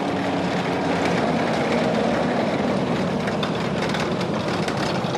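An M981 FISTV tracked vehicle driving past. Its diesel engine runs steadily under the clatter of its steel tracks, fading away near the end.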